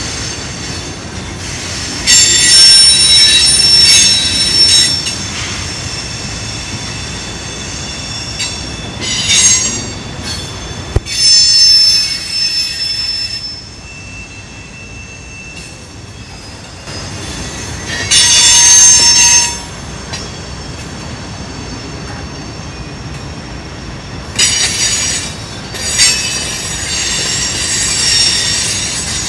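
Freight cars (tank cars and covered hoppers) rolling through a curve, with a steady rumble of wheels on rail. The wheel flanges squeal loudly against the rail in repeated high-pitched bursts of one to three seconds, several tones at once, and there is a single sharp knock near the middle.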